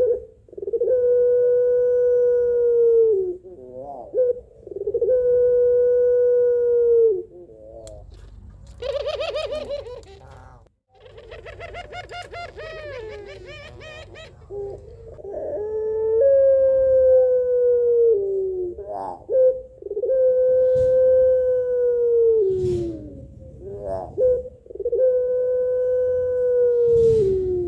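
Female Barbary dove (puter) of the long-calling pelung type cooing: about five long, drawn-out calls, each held on one steady tone for two to three seconds and falling away at the end, with short clipped calls between them. These are a female's calls for a male. Near the middle a quieter, rapidly wavering, higher sound comes in for several seconds.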